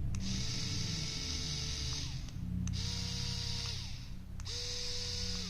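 Electric precision screwdriver's small motor running in three short runs of about two seconds each. Each run starts with a click, spins up to a steady high whine and winds down.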